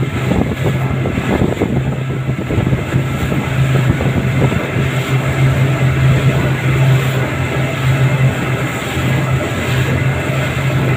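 Twin 300-horsepower outboard motors running flat out on a speeding boat: a loud, steady engine drone under a constant rush of wind and water from the hull.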